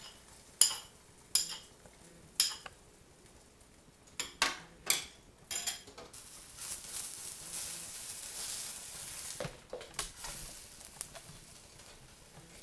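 Egg whites frying in a nonstick wok, with a hiss of sizzling from about halfway through. Sharp knocks of a bowl and utensils against the wok and table come three times in the first few seconds and in a quick cluster before the sizzle, and a wooden spatula knocks and scrapes in the wok near the end.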